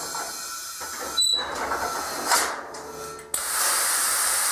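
Pneumatic lift table letting out air as it is lowered: an uneven hiss with a click about a second in, then a louder steady hiss of escaping air from about three seconds in.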